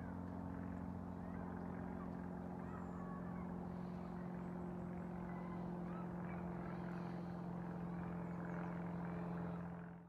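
An engine running at a steady speed, one unchanging low hum, with faint bird chirps above it; it fades out at the very end.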